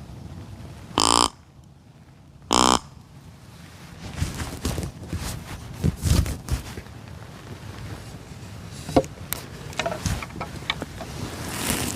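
Two short grunts on a deer grunt call, each about a third of a second long and about a second and a half apart, imitating a buck's grunt. From about four seconds in comes irregular clacking and ticking of buck rattling, mimicking two bucks sparring.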